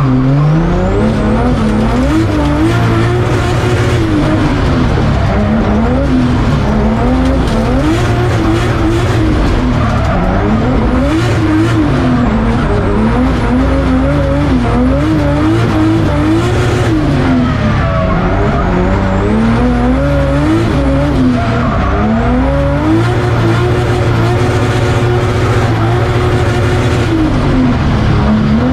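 2JZ inline-six in a Nissan S14 drift car heard from inside the cabin, its revs climbing, holding high and dropping again over and over while drifting, with tyres skidding.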